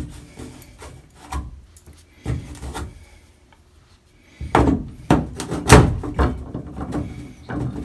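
Brass shower valve stem being handled and fitted into the valve body by hand: scattered knocks and scraping, then a busier stretch of rubbing and clatter from about halfway through.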